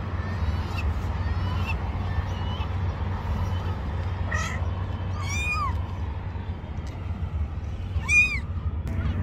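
Kittens meowing, short high-pitched calls a few times, with the loudest near the end.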